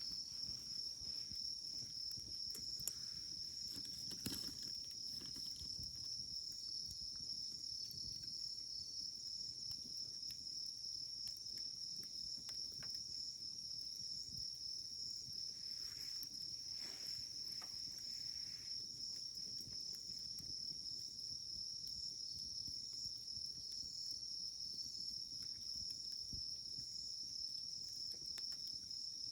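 Firewood burning in a campfire, crackling softly with scattered small pops and one sharper pop about four seconds in, over a steady high-pitched insect trill.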